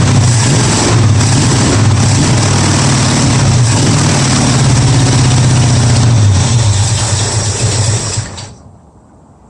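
Engine fed by a Holley four-barrel carburetor running rough and uneven with a pulsing beat, then cutting off about eight seconds in. The owner takes the rough running for missing on several cylinders, running on only about four, from a leaking carburetor that is not delivering fuel properly.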